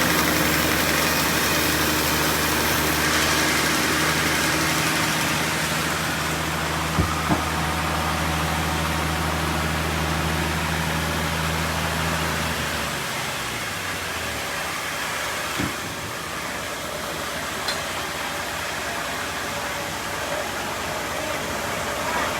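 The sawmill's engine idles steadily, then winds down and stops about 13 seconds in. Two sharp knocks come about 7 seconds in.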